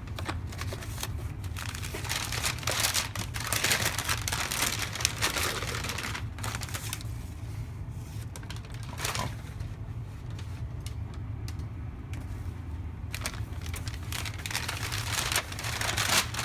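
Wrapping paper crinkling and rustling, with some tearing, as a wrapped item is unwrapped by hand, in two spells: the first several seconds and again near the end.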